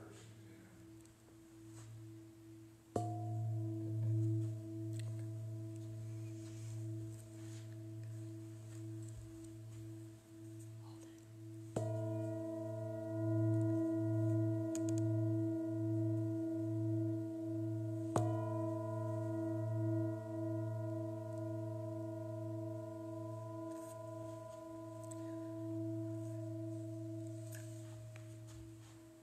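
Large hand-held Tibetan singing bowl struck three times, about three, twelve and eighteen seconds in. Each strike rings on as a long, slowly wavering hum with higher overtones, dying away near the end.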